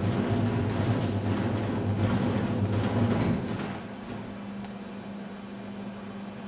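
Washing machine running, its drum churning with a low hum and rapid knocking; about three and a half seconds in it drops to a quieter, steady hum.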